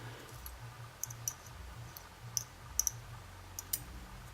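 Light, irregular metallic clicks and ticks of small stainless steel lock pins and cylinder parts being handled as the lock is taken apart, about eight in all, two close together near the end.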